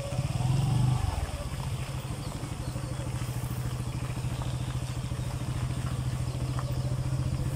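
Motorcycle engine running steadily at low speed, a low putter with a fast even pulse.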